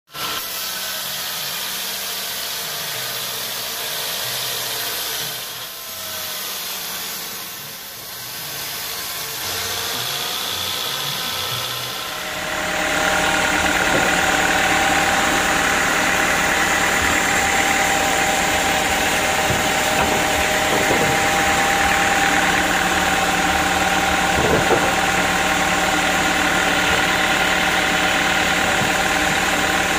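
Band sawmill running while sawing a teak log, the motor's sound varying under the cut. About twelve seconds in it changes abruptly to a louder, steady machine running.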